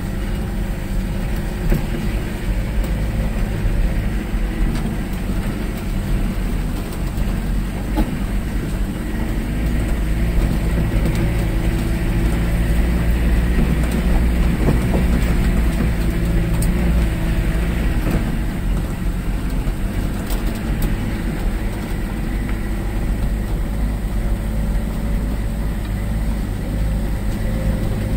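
Car engine running under light load, heard from inside the cabin while the car drives slowly over a rough dirt track. The body and loose fittings rattle, with small knocks as the wheels go over the bumps.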